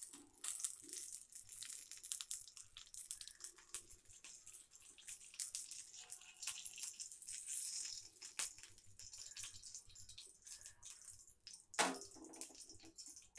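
Oil sizzling and crackling faintly around fish slices shallow-frying on a tawa. A short, louder knock comes near the end.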